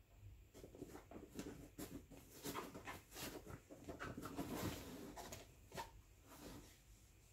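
A small white dog turning around and settling into a padded fabric pet bed. Its paws and body make faint, scratchy rustles on the fabric, busiest about halfway through and dying down near the end as it lies down.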